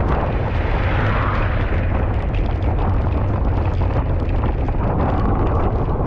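Loud, steady wind buffeting on the microphone, a deep rumble over a constant hiss of rain.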